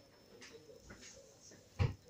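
Faint scattered light taps, then a single dull thump near the end.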